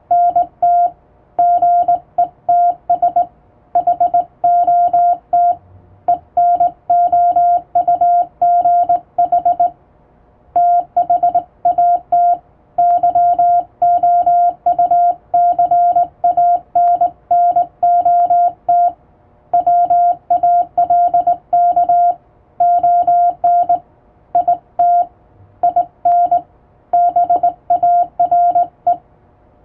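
Morse code sent by hand on a straight key, heard as a single steady beep switched on and off in short dots and longer dashes, grouped into letters and words with brief gaps between them. The text being sent is English-alphabet Morse.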